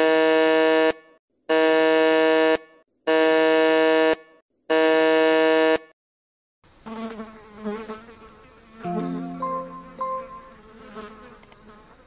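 Electric buzzer sounding four times, each buzz about a second long at the same steady pitch, evenly spaced. After a short silence comes a quieter, irregular sound with shifting tones.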